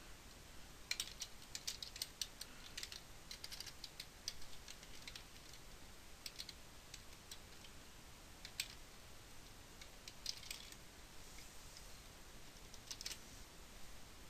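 Quiet typing on a computer keyboard: short runs of keystrokes with pauses between them.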